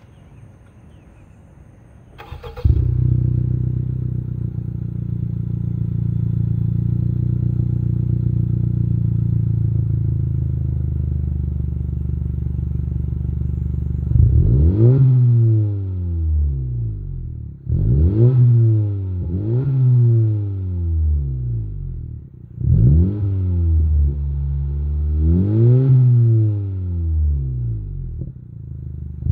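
A 2018 Honda Civic's 1.5-litre turbocharged four-cylinder, heard through a Magnaflow Street Series cat-back exhaust at the tailpipes. It starts up about two seconds in and idles steadily. From about halfway it is blipped several times, each rev rising quickly and falling back to idle.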